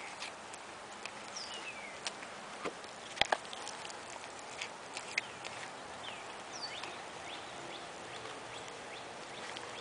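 White-tailed deer chewing apple right at the microphone: scattered crisp clicks and crunches, the loudest a quick pair about three seconds in. Short high chirps of small birds come and go in the background.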